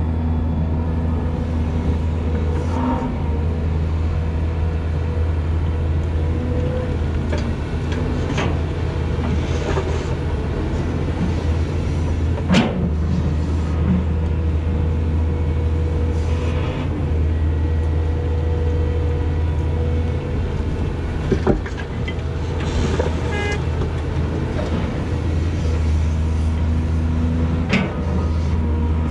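Volvo EC210B LC hydraulic excavator's diesel engine running steadily under load as it digs and swings soil into a dump truck. A few sharp knocks from the bucket and arm stand out.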